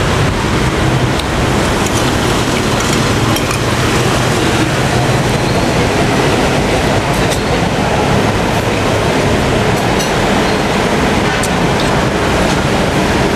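Steady, loud road-traffic noise with a low rumble. A few faint clicks of a spoon and fork against the china bowl and plate.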